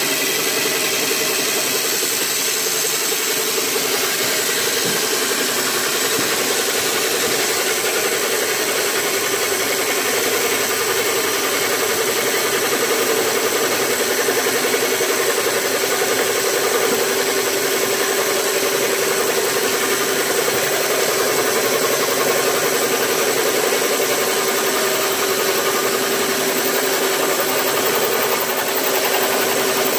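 Portable line boring machine running steadily, its drive turning the boring bar in the welded-up cast-iron bearing bore of a windmill gear head. A steady mechanical hum.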